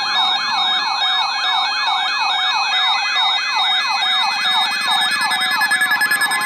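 Electronic alert siren sweeping rapidly up and down, about four sweeps a second. It is likely a weather alert radio's warning alarm, sounding just ahead of a broadcast warning. Steady tones join it partway through.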